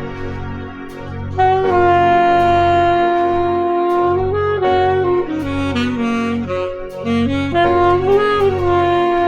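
Saxophone playing over a jazz chord backing track with a pulsing low accompaniment. About a second and a half in, the sax comes in on a long held note, the major seventh of the chord. It steps down in the middle and then returns to hold the seventh again.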